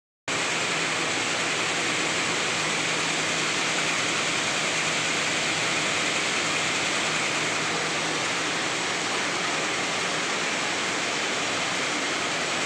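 NS-1300 slitting machine running at about 144 m/min, slitting a white web into narrow strips and rewinding them: a steady, even rushing noise with a faint low hum underneath.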